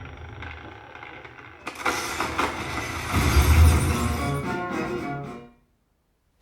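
Film soundtrack played through a Yamaha YAS-207 soundbar: a low rumble, then a sudden crash with shattering and dramatic music with heavy bass, which cuts off abruptly near the end.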